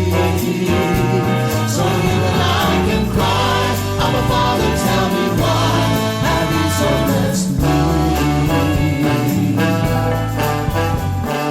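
Gospel song playing: an instrumental passage with choir-like singing over a steady band accompaniment.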